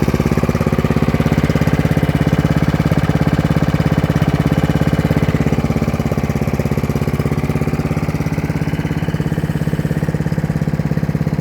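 Lawn mower's small engine running steadily with an even, rapid firing pulse, dropping slightly in level about halfway through.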